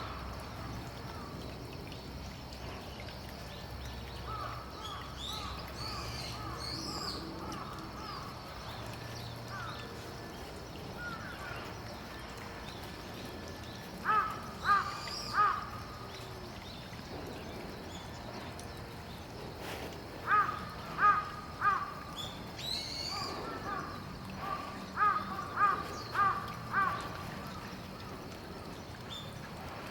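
Crow cawing in runs of three or four calls, with short high chirps of small birds between them.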